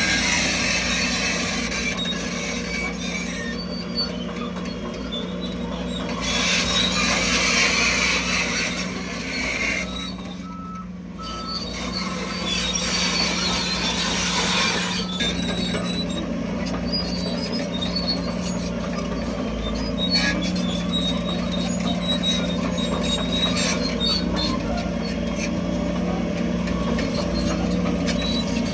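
Heavy diesel earthmoving machinery, a bulldozer and dump trucks, running with a steady engine drone, dipping briefly about ten seconds in.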